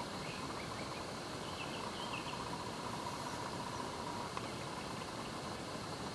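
Swamp ambience: steady insect trilling and buzzing, with a few short bird chirps in the first couple of seconds, over a constant hiss.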